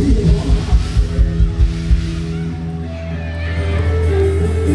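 Live rock band music through loud PA speakers: a fast, driving kick-drum beat for about two seconds, then the beat drops out, leaving held bass and keyboard notes.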